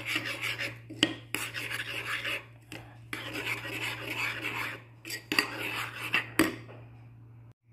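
Metal spoon stirring thick pizza sauce in a ceramic bowl: repeated scraping strokes with sharp clinks of the spoon against the bowl, stopping about a second before the end.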